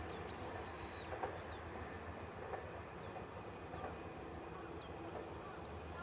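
Faint low rumble of a passing electric train dying away along the track, with a brief thin high whistle about half a second in and scattered faint bird chirps.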